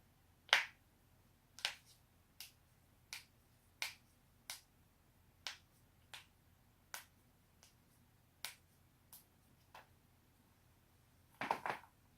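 Joints being cracked: a series of about a dozen sharp, single pops, roughly one a second, then a quick double pop near the end. The first pop is the loudest.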